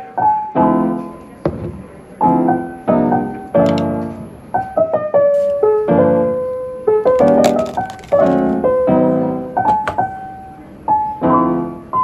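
Background piano music: soft chords struck about once a second, each left to fade before the next.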